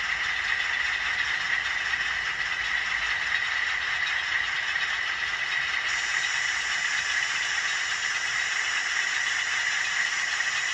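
HO scale model freight train running on Kato Unitrack: a steady whirring rattle of small wheels and motor on the track.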